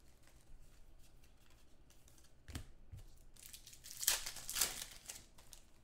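Foil trading-card pack wrapper being torn open and crinkled by hand, in a few short rips about two and a half seconds in and again around four seconds in.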